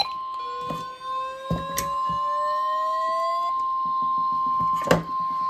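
NOAA Weather Radio 1050 Hz warning alarm tone: one steady, unbroken beep coming off a weather radio receiver, the tone that signals a warning message is about to be read. A fainter tone glides slowly upward under it for the first few seconds, and a few sharp clicks of static cut through, the loudest about five seconds in.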